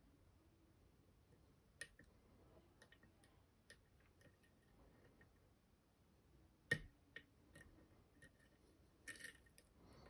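Faint, scattered small clicks of a steel lock pick working the pins of a Goal P pin tumbler lock, jiggle testing them to find the binding pins. One sharper click comes about two-thirds of the way through, and a quick cluster of clicks near the end.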